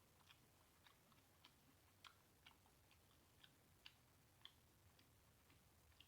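Faint, irregular clicks of chewing and lip smacking, about two or three a second, over a low hum.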